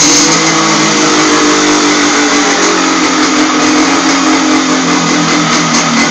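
Yamaha RD 135 two-stroke twin engine with a short Sarachu expansion-chamber exhaust, running loudly at steady revs, its pitch easing slowly downward.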